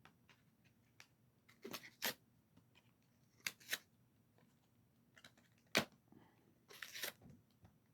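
Faint handling sounds of a utility knife's retail packaging being opened: a few scattered sharp clicks, then a short rustle near the end.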